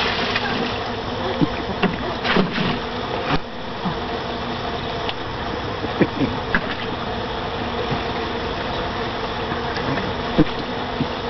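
Water poured from a cup splashing into a plastic kiddie pool at the start, with a few more splashes two to three seconds in, over a steady buzzing hum.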